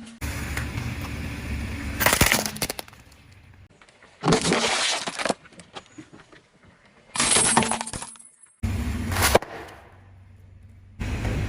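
Objects cracking and breaking as a car's tyres roll over them, in several short separate crushes with sudden starts and stops, some with a low rumble of the car underneath.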